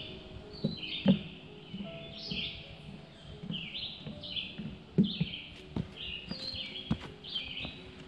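A songbird singing continuously in short repeated phrases, over soft background music with held notes. A few sharp thumps stand out, the loudest about one and five seconds in.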